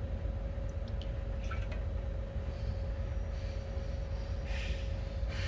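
Steady low background hum with a faint constant tone, a few light clicks about a second in, and two short hissing sounds near the end.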